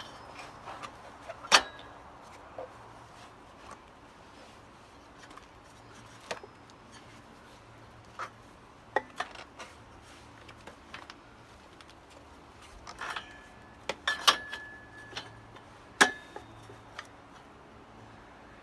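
Scattered metal clinks and knocks from tools and wheel parts being handled, some with a short metallic ring; the loudest are single sharp knocks about a second and a half in and near the end.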